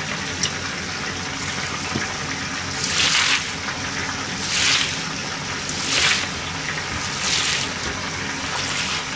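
Shredded cabbage being tossed and mixed by hand in a stainless-steel mesh colander: four rustling swishes about a second and a half apart, over a steady hiss.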